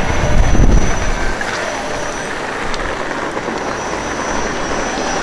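BYD battery-electric single-deck bus passing close and pulling away. A low rumble is loudest in the first second as it goes by, then settles into steady road noise with a faint high whine.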